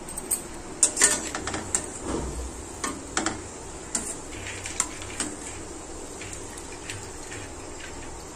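A perforated steel skimmer clinking against a steel frying pan and a steel bowl as fried cashews are scooped out of oil and tipped out, with a dozen or so sharp taps over the first five seconds. A steady low hiss runs underneath, and only the hiss is left after the tapping stops.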